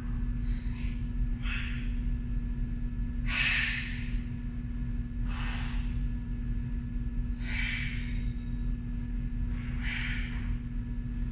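A woman's forceful breaths through mouth and nose, about one every two seconds, in time with single-leg glute bridge reps: an exhale as she squeezes and lifts her hips. Underneath is a steady low hum.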